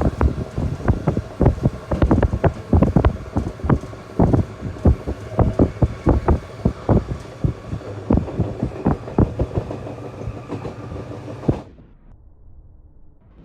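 Train running on rails: a steady rolling rumble with many sharp, irregular clacks and knocks from the wheels over the track. Near the end the sound drops suddenly to a much quieter, duller rumble.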